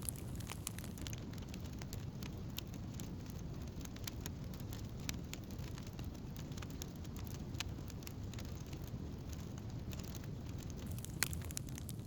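Wood campfire crackling: scattered sharp pops and snaps over a steady low noise.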